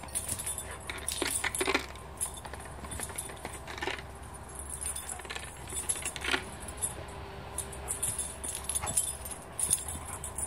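Metal tags on a dog's collar jingling on and off as the dog leaps and runs about, with several short sharp sounds mixed in, the strongest cluster about a second and a half in.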